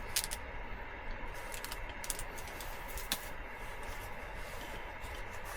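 A few sharp light clicks and taps at a cooking pot of boiling noodles, over a steady low hiss.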